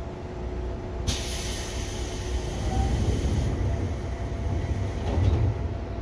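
Seibu 2000 series electric train running along the track, a steady low rumble heard in the driver's cab. About a second in, a sharp hiss starts suddenly, holds for a couple of seconds, then fades.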